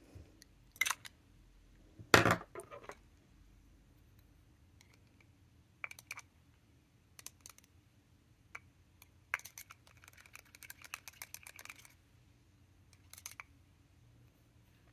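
Small hard objects handled on a desk: a light click about a second in, a sharper knock about two seconds in, then scattered clicks and a run of quick light clicking a little before the end.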